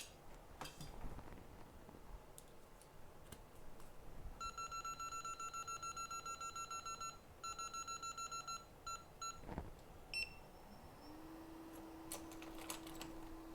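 Electronic beeping from bench equipment: a fast run of short, same-pitched beeps, about ten a second, in three runs in the middle of the clip. A steady low hum then starts near the end, rising briefly in pitch and holding.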